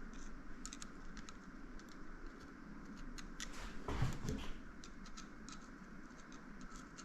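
Faint scattered clicks and light taps of small fork parts being handled and fitted by hand. A louder, duller sound comes about four seconds in.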